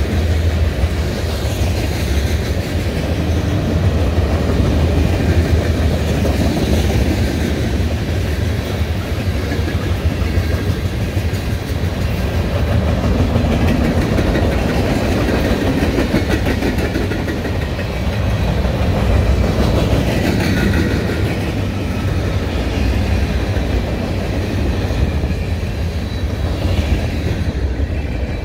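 Freight train cars rolling past at close range, their steel wheels running on the rails with a steady, continuous rumble.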